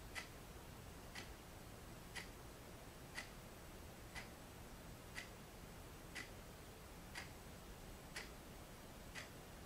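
Wall clock ticking faintly and evenly, one tick a second.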